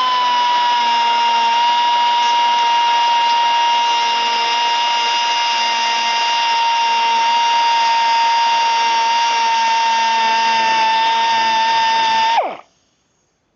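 Pneumatic 1/4-inch die grinder with a stone bit running at full speed on a piece of scrap wood: a steady, loud, high whine with air hiss, dipping slightly in pitch under load. About twelve seconds in it is released and quickly spins down with a falling whine.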